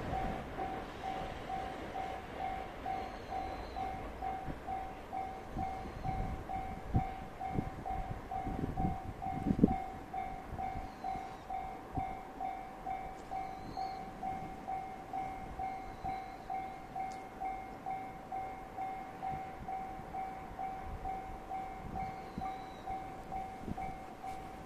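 Railway level-crossing alarm ringing steadily, about two rings a second. A few low thumps come around the middle, the loudest about ten seconds in.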